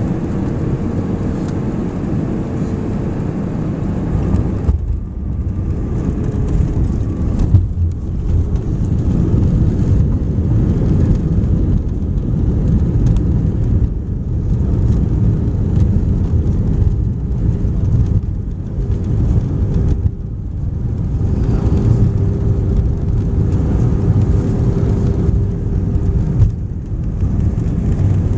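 Loud, continuous rumble inside an Airbus A319's passenger cabin during landing: engine and airflow noise with a steady whine. The rumble briefly dips a few times.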